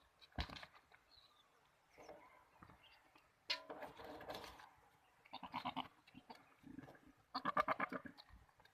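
Goats bleating: several quavering bleats, the loudest near the end.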